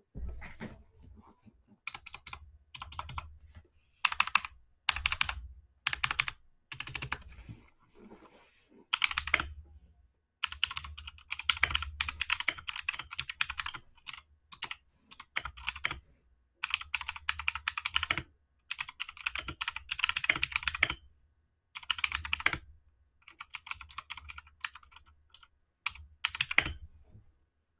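Royal Kludge RK61 mechanical keyboard with blue switches being typed on in quick bursts of keystrokes, with short pauses between the bursts.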